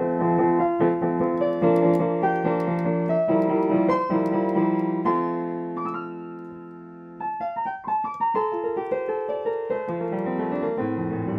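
Background piano music: a string of notes, one chord left to ring and fade about six seconds in, then the playing picks up again.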